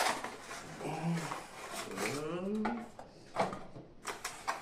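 Clicks and knocks of a perfume box and its packaging being handled and opened. A short hum about a second in, then a longer voice-like sound sliding up in pitch.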